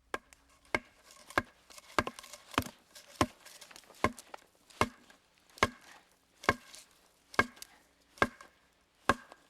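Felling wedge being driven into the saw cut of a standing tree with repeated sharp blows, about thirteen in all, a little over one a second, the gaps growing slightly longer towards the end.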